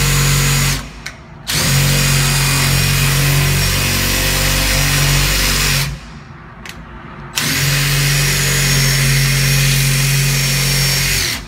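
DeWalt drill running a screw-extractor bit into a stripped screw in a series of trigger pulls: a short run, a quick blip, then two steady runs of about four seconds each with another quick blip between. The extractor is not biting and the screw is not coming out.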